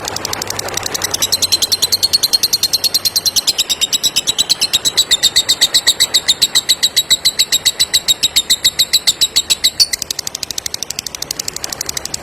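Lovebird giving a long 'ngekek' chatter: a fast, even run of shrill chirps, about ten a second, that gets louder about a second in and cuts off abruptly near the end, leaving a fainter chatter.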